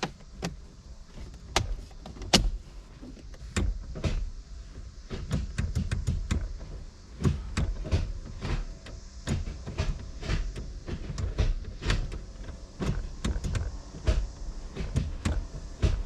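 Irregular clicks and knocks of hands working on a car's shift console: the gear lever of a newly fitted short-throw shifter and the plastic console bezel being moved and fitted, some knocks with a low thud.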